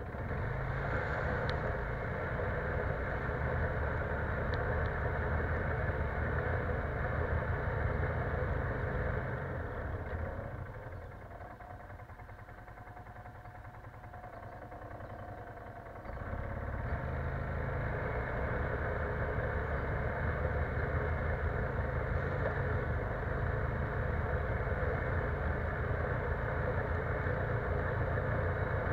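ATV engine running as the machine rides along, easing off for several seconds about a third of the way through and then picking back up.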